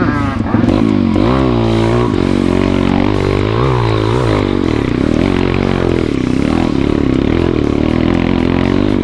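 Single-cylinder four-stroke engine of an MRF 140 pit bike, ridden off-road, its pitch rising and falling as the throttle is opened and closed. In the first half it revs up and down several times in quick succession, then holds steadier.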